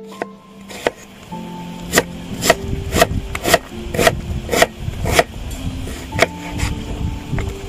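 Kitchen knife chopping an onion on a wooden cutting board: sharp strikes about two a second from about two seconds in, fainter after about six seconds, over background music.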